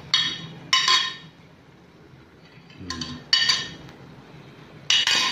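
Steel spoon tapping against a plate to knock garlic cloves off into a clay pot: sharp ringing clinks, three in the first second, another at about three and a half seconds and one more near the end.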